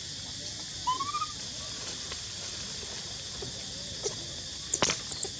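Short high squeaks from a monkey: a rising squeak about a second in, and near the end a sharp click followed by a couple of higher squeaks, over a steady high hiss.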